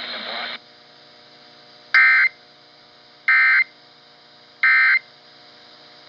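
Emergency Alert System end-of-message tones from a Spartus clock radio's speaker: three short, shrill digital data bursts about 1.3 seconds apart, the code that closes the alert broadcast, with a low hum between them. The announcer's voice cuts off about half a second in, just before the first burst.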